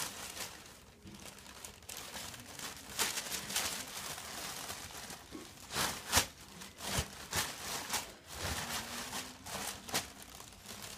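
Paper being crumpled and torn by hand: irregular crinkling rustles with a few sharper crackles, the loudest about six seconds in.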